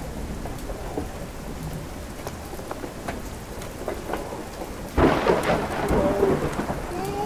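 Thunderstorm sound effect: steady rain hissing, with a sudden loud thunderclap about five seconds in that rumbles on.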